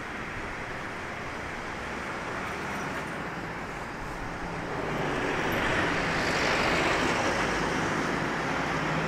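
Road traffic noise from passing cars, with one vehicle passing close about five seconds in, its engine and tyre noise swelling and then easing a little.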